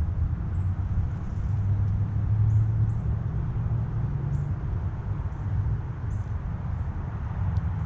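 Steady low rumble of road traffic, with about ten faint, short, high chirps of small birds scattered over it.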